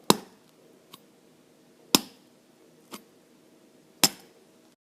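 A run of sharp clicks or snaps about a second apart: three loud ones and two softer ones between them, each dying away quickly, over a faint steady hum.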